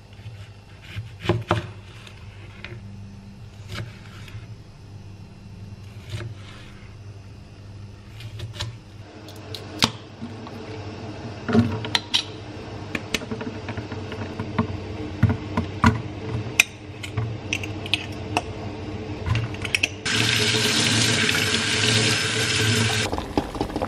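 Kitchen handling sounds, scattered clicks and knocks of a jar and utensils over a steady low hum; then, about 20 seconds in, tap water runs loudly into a plastic colander in the sink for about three seconds and stops.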